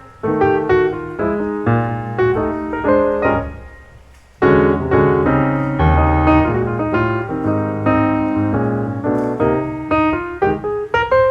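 Piano music: struck notes with chords, dying away briefly about four seconds in before the playing picks up again.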